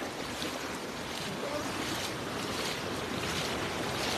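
Shallow river water splashing and sloshing as a person wades through it, over a steady rushing noise.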